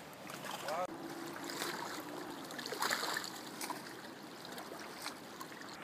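Steady wash of river water lapping and flowing along the bank, with a brief louder rush about three seconds in.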